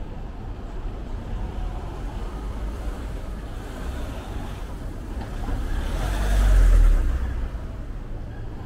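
A car driving past close by: a steady low rumble of street traffic, with engine and tyre noise swelling to a peak about six to seven seconds in and then fading away.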